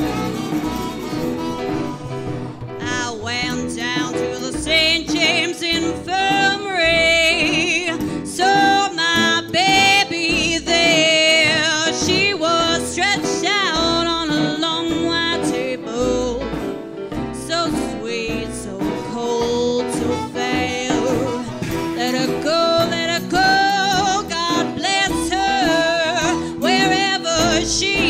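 A woman sings a 1920s-style jazz song with a wide vibrato, backed by a small dance band with piano, upright bass, drums and clarinet. The band plays alone for about the first two and a half seconds, then the voice comes in.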